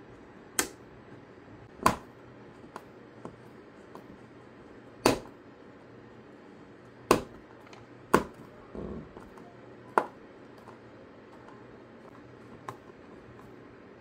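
Clicks and taps of a small screwdriver working screws into a 3D-printed plastic speaker case while the case is handled. There are about six sharp clicks at irregular spacing and a brief soft scrape about nine seconds in.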